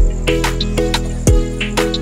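Background music with a steady beat: deep kick drums and sustained bass notes under sharp percussion hits.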